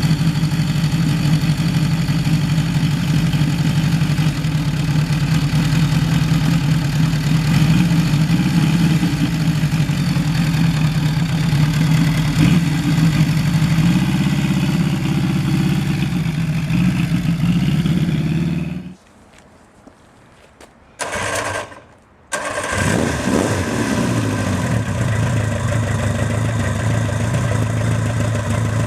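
Motorcycle engine idling steadily. About two-thirds of the way through it cuts out, a short sound follows, and then the engine is running again, settling to a lower idle.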